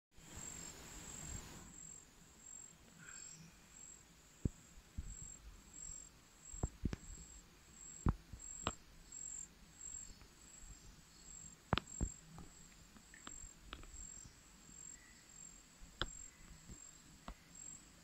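An insect sings a high, evenly pulsing chirp that runs on steadily, with faint low background noise. Scattered sharp clicks and taps, louder than the insect, come every second or so after the first few seconds.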